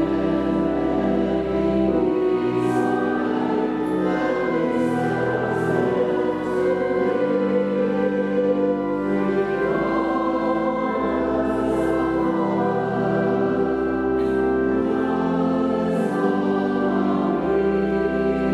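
A choir singing slow music in long held notes, over low bass notes that change every second or two.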